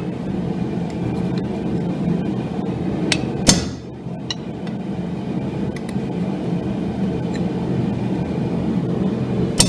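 Hammer striking a chisel into hot steel on an anvil, cutting beard strands: two sharp ringing blows, about three and a half seconds in and at the very end, with a few light taps between, over a steady low rushing noise.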